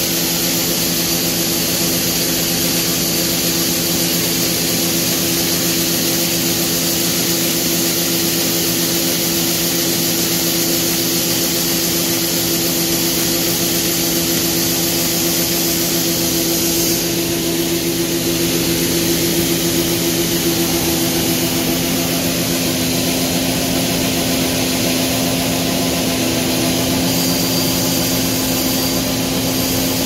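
John Deere 9500 combine running steadily while unloading, its engine and unloading auger making a steady drone with several hum tones. Over it is a strong hiss of shelled corn pouring from the auger spout into the grain wagon.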